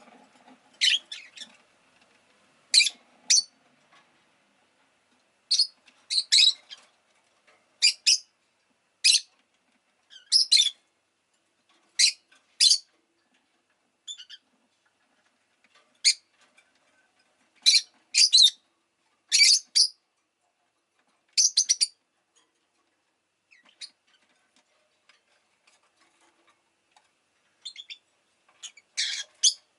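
Rosy-faced lovebird giving short, sharp, high chirps, singly or in quick pairs every second or two, with a pause of several seconds and then a quicker run of chirps near the end.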